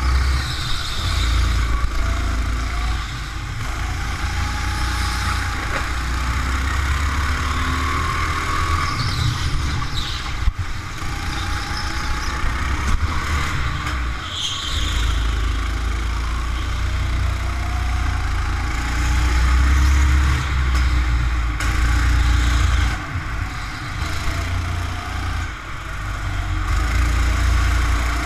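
Go-kart engine running at speed, its pitch rising and falling as it is throttled through the corners, over a steady low rumble.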